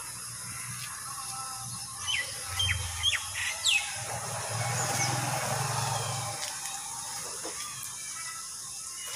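Birds chirping: a quick run of short chirps about two to four seconds in, over a steady high hiss.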